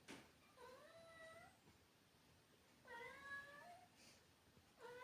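A cat meowing twice, each call about a second long and rising in pitch: the vocalizing of a cat watching birds. A short click at the very start, and a third meow beginning near the end.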